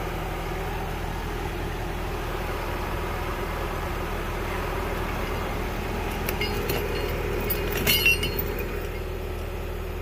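Diesel engine of a tracked logging machine running steadily, with a few sharp metallic clinks in the second half.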